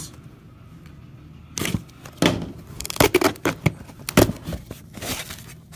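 Wrapping and sealing tape being torn and crinkled off a cardboard trading-card box, with the box handled in the hands: a dense run of sharp crackles and rustles starting about a second and a half in.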